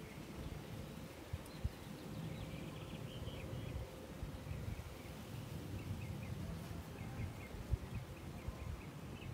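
Small birds chirping in short runs of quick chirps over a low, unsteady rumble, with a couple of soft thumps, one early and one near the end.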